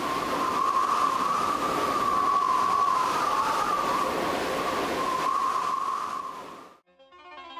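Iceboat runners skimming over ice at speed: a steady rushing hiss with a wavering high singing tone, cutting off suddenly near the end.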